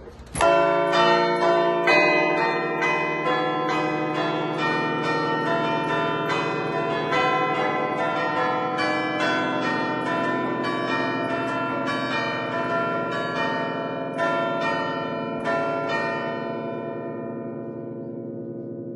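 Ten-bell chime in A, cast by Barigozzi in 1950, played from a lever keyboard: the hanging bells are struck by their clappers in a quick festive melody (Bergamasque allegrezza). The strikes start about half a second in, stop around 17 seconds in, and the bells are left ringing and fading.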